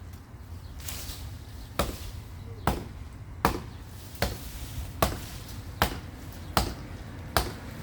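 Repeated chopping blows into a tree limb with a hand tool, about eight sharp strikes, a little under one a second.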